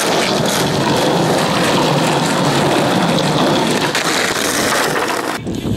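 Skateboard wheels rolling over rough asphalt, a loud continuous grainy rumble that cuts off suddenly about five and a half seconds in.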